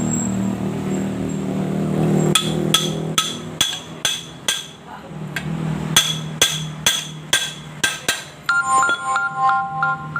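Evenly spaced ringing metallic clinks, about two a second with one short pause, over a low hum, followed near the end by a brief run of short beeping tones.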